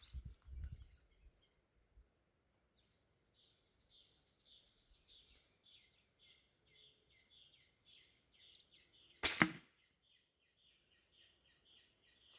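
A single air rifle shot about nine seconds in, sharp and short. A faint, evenly repeated high chirping runs behind it.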